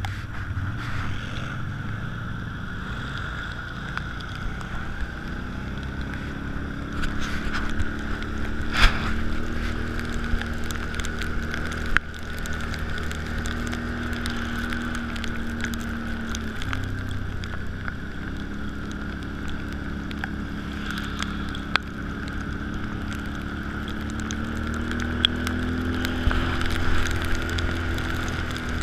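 Can-Am ATV engine running under way, its pitch climbing with the throttle about a fifth of the way in, dipping briefly past the middle and climbing again near the end, with a steady high whine over it. Wind buffets the microphone.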